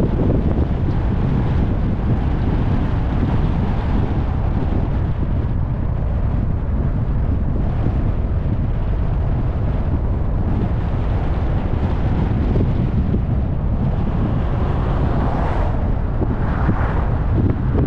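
Steady wind rushing over the microphone of a camera on a moving car, with tyre and road noise underneath.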